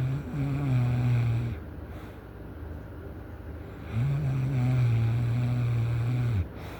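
Loud snoring: two long, low, buzzing snores about four seconds apart, the second one longer and ending abruptly.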